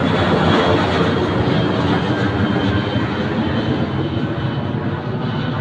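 Passenger airliner's engines at takeoff power as it climbs away, a steady roar with a faint high whine, slowly fading.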